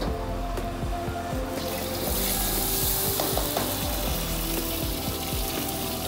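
Hot wok sizzling hard over a high gas flame, a loud steady hiss that starts about a second and a half in as liquid and ingredients hit the pan and throw up steam, with background music underneath.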